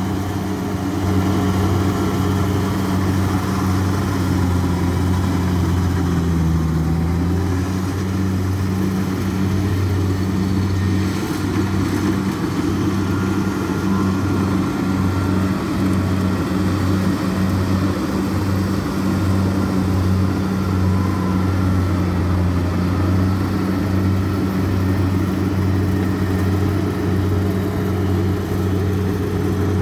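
Kubota DC-60 combine harvester's V2403 four-cylinder diesel engine running steadily under load as the machine cuts and threshes rice. The engine pitch dips briefly about six seconds in, then holds steady.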